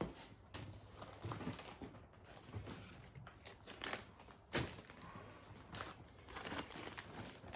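Plastic vacuum-bag film crinkling and rustling as a vacuum-bagged carbon fibre mudguard is handled, with scattered light clicks and taps.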